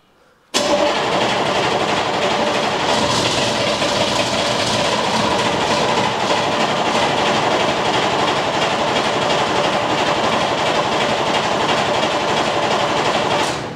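HMMWV V8 diesel turned over by its starter motor in one long steady crank of about thirteen seconds without starting, starting about half a second in and cutting off just before the end. The starter is drawing fuel up through the freshly cleaned fuel system to build pressure, as the engine has no manual priming pump.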